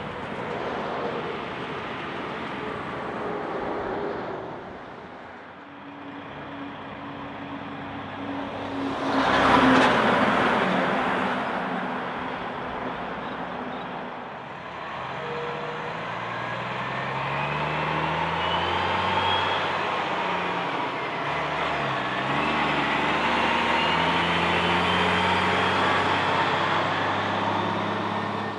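Heavy trucks passing on a highway, one passing close and loud about nine seconds in. Later a road train's diesel engine pulls away, its pitch climbing and dropping back with each gear change, over tyre noise as the loaded trailers roll by.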